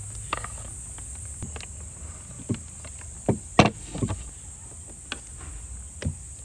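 Kitchen knocks and scrapes: a knife scraping chopped vegetables off a wooden cutting board into a clay pot, and a wooden spoon tipping mince in. About eight short, sharp knocks at irregular moments, over the steady chirping of crickets.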